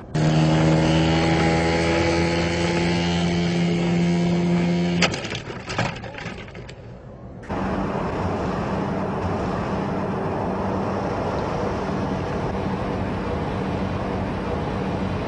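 A model airplane's small engine running at a steady pitch for about five seconds, then a few sharp clicks and a lull. About halfway through, a steady engine and propeller noise with a low hum comes in from a twin-engine turboprop aircraft coming in to land.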